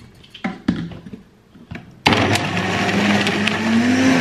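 A few light knocks and clicks, then about two seconds in a countertop blender starts suddenly and runs loud, its motor tone rising as it speeds up while it blends berries and banana into a smoothie.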